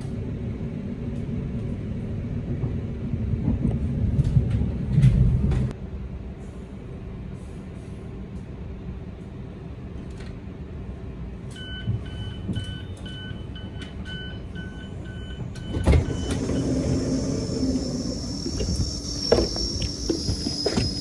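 Train running noise, a steady low rumble that drops off after a few seconds. About halfway through, an electronic beep repeats about twice a second for some four seconds, like a train door-closing warning. A thud follows, then a hiss over the rumble.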